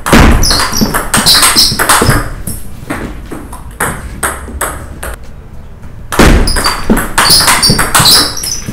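Table tennis ball clicking sharply off rackets and the table in fast exchanges of shots. There are two dense, loud rallies, one at the start and one about six seconds in, with sparser ball bounces between.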